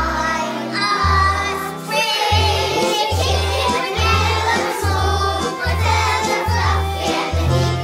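A group of young children singing a song together over musical accompaniment with a steady bass line.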